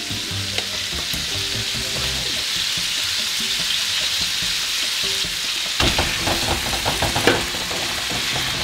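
Oil sizzling steadily in a wok as onion, turkey bacon, smoked meat and shrimp fry. From a little before the six-second mark a metal spatula knocks and scrapes in quick succession against the pot and wok while scooping cold cooked rice into the pan.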